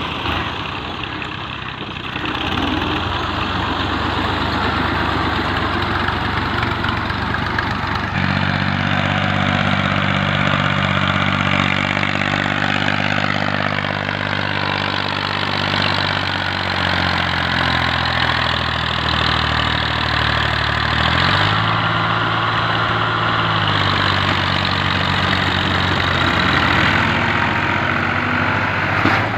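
Diesel farm tractor engines running and working under load, hauling a trolley loaded with earth through soft clay. The engine note holds steady for long stretches, drops and rises about two-thirds of the way through, and shifts again shortly after.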